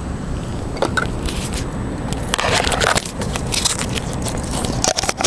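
Steady wind rumble on the small onboard camera's microphone, with irregular scraping and crackling as the plane and camera are handled. The electric motor is not heard running.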